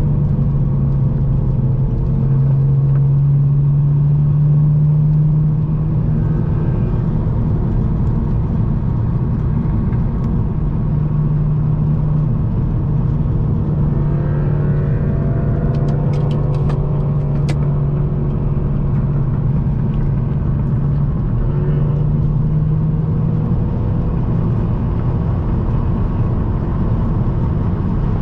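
Turbocharged four-cylinder engine and loud catless exhaust of a modified MK7 Volkswagen GTI running under way at a steady pace. It drones at a fairly even pitch that steps up or down a few times, over steady road noise. Around the middle, other engine tones rise and fall and a few sharp clicks come through.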